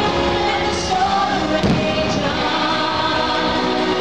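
Choral music with singing plays loudly and steadily, with a couple of dull firework bursts about one and nearly two seconds in.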